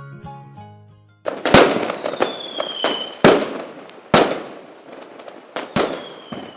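Fireworks sound effect: about five sharp bangs, each trailing off in crackle, with a whistling rocket falling in pitch twice. A plucked-string jingle fades out in the first second.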